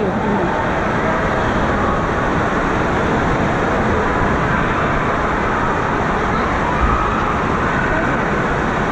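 Steady rushing din of an indoor water park: running water with faint distant voices echoing through it.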